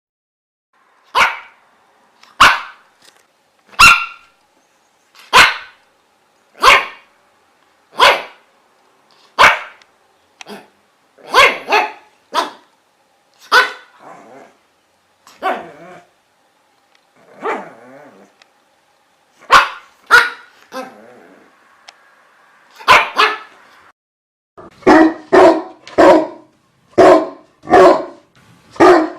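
A dog barking in single sharp barks, at first about one every second and a half, then irregular with pauses, and a quicker run of barks near the end.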